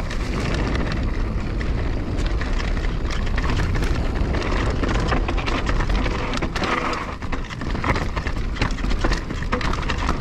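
Wind rumbling on the action camera's microphone as a Canyon Torque enduro mountain bike rolls down rocky dirt singletrack, with frequent clicks and knocks from the tyres on stones and the bike rattling over the bumps.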